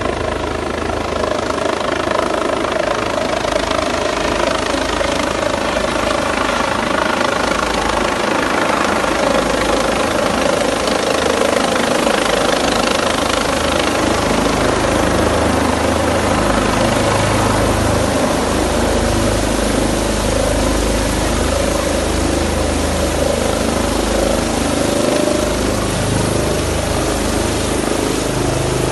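Airbus H145 twin-turbine helicopter running loud and steady as it descends to land, with rotor and turbine tones and a low rumble that builds from about halfway through as it comes in close.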